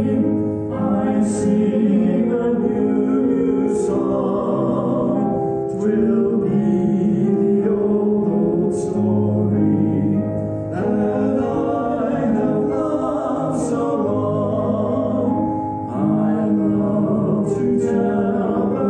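Music with choral singing: slow, held chords over a low bass note.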